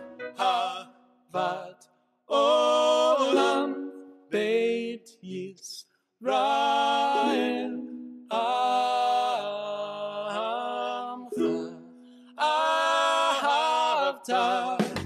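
Recorded pop song: a male voice sings in phrases over light instrumental accompaniment, with short pauses between the lines.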